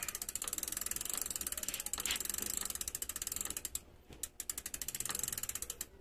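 Bicycle rear hub's freehub pawls clicking rapidly as the cranks are turned by hand and the chain runs through a rag. The even ticking thins out and stops a little under four seconds in, then picks up again.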